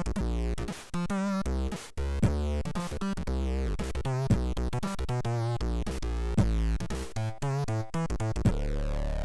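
Commodore 64 SID chip tune: a stepping bass line and fast warbling arpeggios, with a sharp drum hit about every two seconds. Near the end a rising synth glide sweeps up over held notes.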